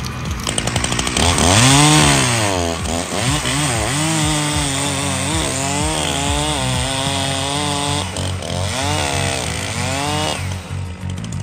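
ZimAni two-stroke chainsaw running, its engine revving up and down over and over, with a steady low drone beneath. The revving stops about ten seconds in.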